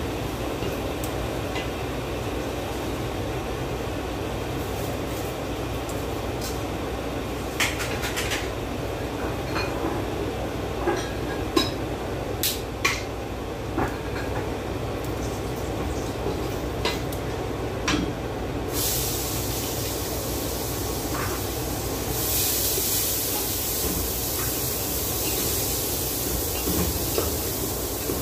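Kitchen work at the stove: aluminium pots and utensils clinking a dozen or so times over a steady low hum. About two-thirds of the way through, a steady hiss starts and grows louder a few seconds later.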